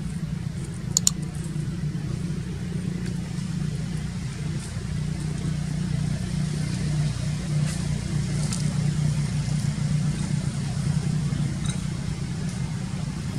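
Steady low engine-like hum, with a short sharp click about a second in and a few faint ticks.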